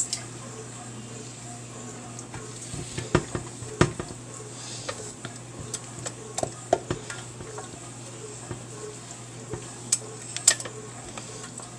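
Kitchen clatter: scattered clinks and knocks of dishes and utensils being handled, the loudest about three and four seconds in and again near the end, over a low steady hum.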